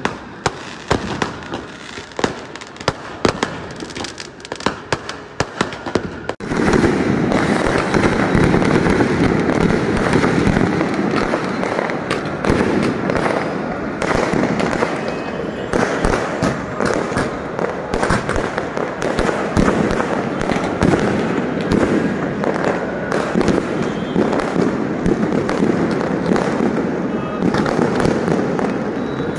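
Fireworks display: a rapid string of sharp firecracker cracks and pops. About six seconds in, the sound abruptly becomes a louder, continuous din of bursts and crackling.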